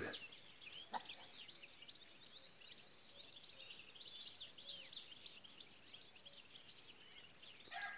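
Faint morning chorus of songbirds: many short, high chirps and trills overlapping continuously.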